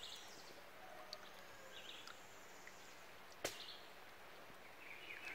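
Faint, quiet stream-side ambience with a few faint bird chirps and a single sharp click about three and a half seconds in.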